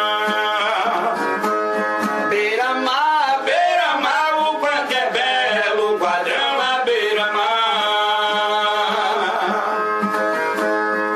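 Viola caipira (Brazilian ten-string guitar) strumming under a voice singing a long, wavering melodic line. The voice stops about ten seconds in, leaving the viola playing alone.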